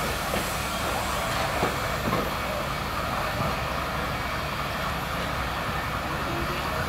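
DRB Class 52 steam locomotive at the station platform, a steady rumble and hiss.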